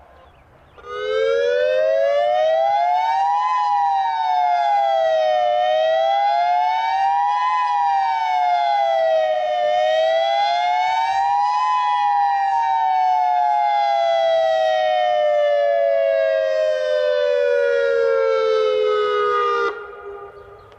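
Tornado warning siren wailing in two close tones. Its pitch sweeps slowly up and down three times, then glides down for about eight seconds before cutting off abruptly.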